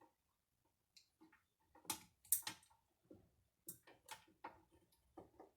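Faint, irregular clicks and short scrapes from a small screw and the table leg being fiddled with, as someone tries to get the screw started in a router table leg. The screw is not catching.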